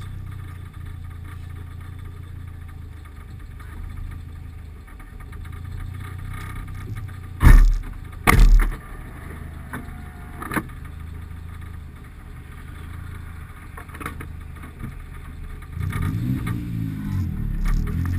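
Car engine running at low speed, heard muffled through a GoPro's closed waterproof housing, with two heavy thumps about halfway through. Near the end the engine pulls harder and its pitch climbs as the car accelerates.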